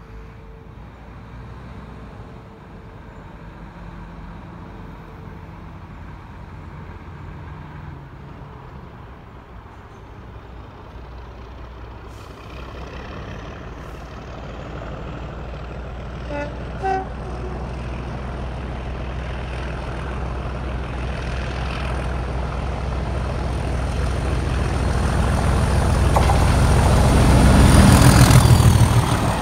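Diesel locomotive hauling a train approaching along the line, its engine rumble and a thin high whine growing steadily louder until it passes close by near the end.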